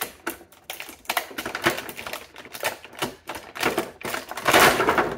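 Stiff clear plastic toy packaging crackling and clicking as fingers pry and pull at it, with a louder burst of crinkling shortly before the end.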